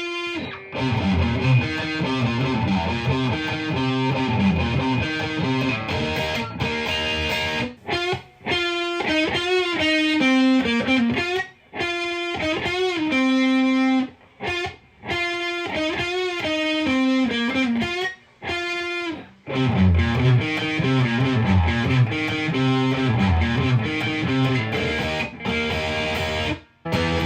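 Overdriven electric guitar with humbucking pickups played through a Marshall DSL-1 valve amp and 2x12 cabinet: riffs broken by brief pauses, a single-note melodic passage with string bends in the middle, then heavier low chords near the end.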